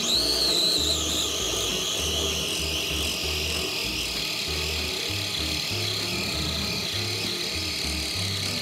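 Small electric food chopper's motor switched on suddenly and running steadily, a high whine that dips slightly in pitch over the first two seconds and then holds.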